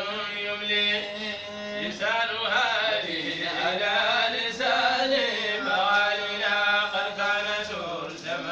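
Men's voices chanting a Sufi dhikr, a continuous melodic recitation with long held notes.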